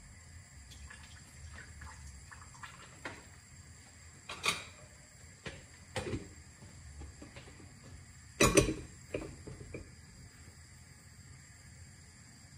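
Scattered knocks and clatters of kitchenware being handled, with the loudest clatter about eight and a half seconds in.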